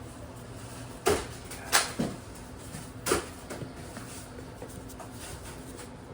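Trading cards and their packaging being handled: four sharp taps or clicks between about one and three seconds in, with fainter ticks around them.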